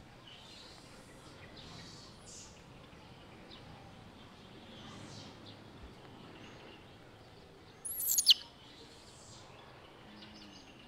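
Quiet outdoor ambience with faint, scattered high bird chirps, and one brief, louder high-pitched sweeping call about eight seconds in.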